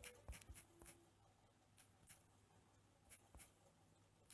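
Faint, irregular taps of fingers on a smartphone touchscreen, typing a search into an app: a quick run of taps in the first second, then single taps spread out over the rest.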